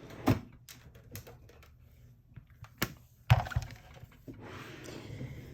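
Small hard objects being handled on a desk: a string of sharp clicks and taps, loudest a little past three seconds in, followed by a soft rustling.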